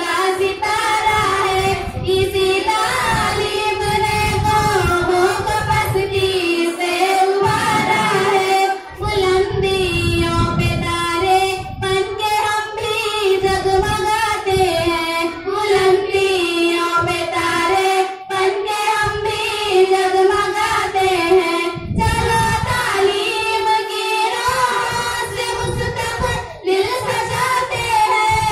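A group of four schoolgirls singing an Urdu school song (tarana) together through microphones.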